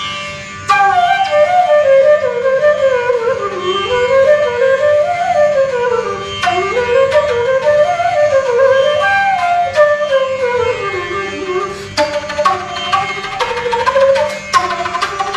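Bansuri (bamboo transverse flute) playing a melody that winds up and down in quick runs, over a steady drone. From about twelve seconds in, sharp percussive strikes join in a rhythm.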